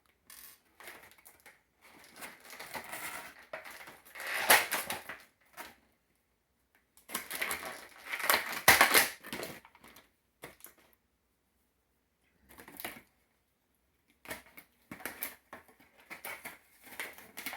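Stiff plastic clamshell packaging crackling and crinkling as it is handled, in two long bursts with sharp snaps at their loudest, then a few scattered small clicks.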